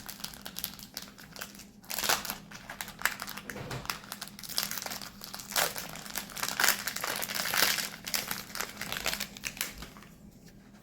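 Foil trading-card booster pack wrapper being crinkled and handled as the pack is opened, in irregular rustling bursts that die down near the end, over a faint steady hum.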